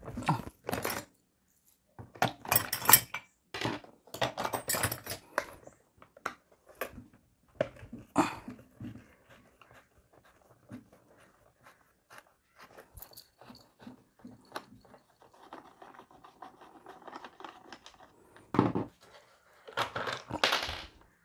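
Screwdriver working the screws of a STARQ W4 pressure washer's plastic housing as the cover is handled and pried loose: irregular scraping, clicks and plastic rattles, in short louder bursts with quieter fiddling between.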